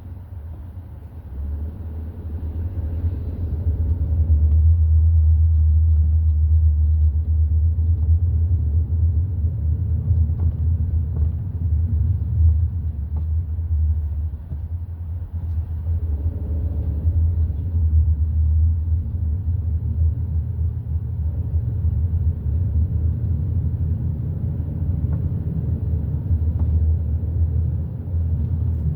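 Hyundai i30 N Line on the move: a steady low rumble of road and engine noise that builds over the first few seconds, then holds with small swells.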